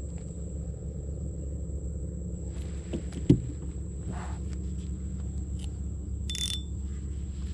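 Steady low rumble with a thin, constant high-pitched insect drone over it, and a single sharp knock a little under halfway through.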